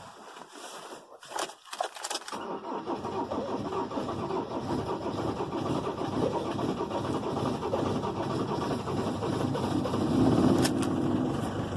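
A few clicks, then a 2010 Ford Transit's 2.4 diesel engine cranking over steadily on the starter without catching, growing louder near the end. It is a hard start: all four glow plugs are dead and the battery is weak.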